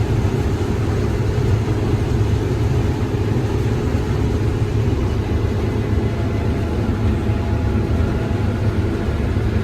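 Combine harvester running steadily through the corn, a constant low engine and machinery drone.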